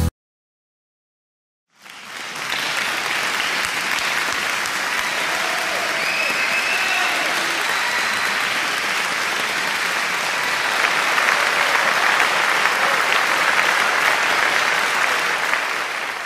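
Crowd applauding, starting about two seconds in after a short silence.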